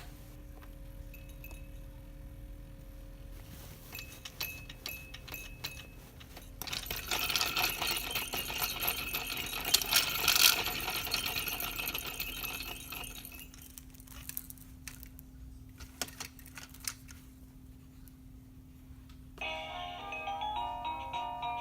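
Baby bouncer toy-bar toys being handled: scattered clicks, then several seconds of rattling, jingling and crinkling, over a low steady hum. The bouncer's electronic tune starts playing again near the end.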